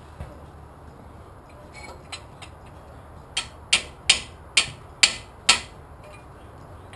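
Six sharp metal-on-metal hammer blows, about two a second, each ringing briefly, struck on a Pontiac 455 V8 block to knock a stuck valve lifter loose so the camshaft can come out. A few lighter taps come before them.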